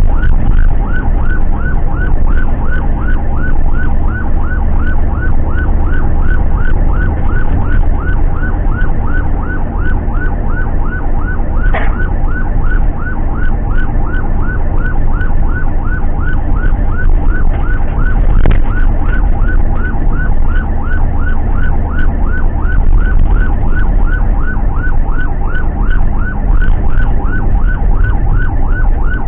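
Ambulance's own electronic siren sounding a fast yelp, a rising-and-falling wail repeating about three times a second, heard from inside the cab over steady engine and road rumble.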